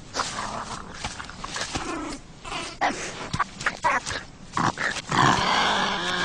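Wolverine calling: a string of short, rough calls and clicks, then a longer, louder call about five seconds in.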